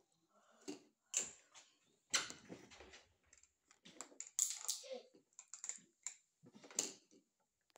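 Plastic toy dishes, a colander and pots clattering and knocking against a plastic toy kitchen as they are handled and stacked, in an irregular run of clicks and knocks.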